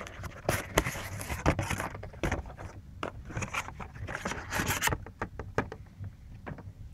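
Cardboard packaging scraping and rustling as an inner cardboard box is slid out of a processor's retail box and its contents are unpacked, with sharp clicks of handled packaging. About five seconds in the handling thins out to scattered clicks.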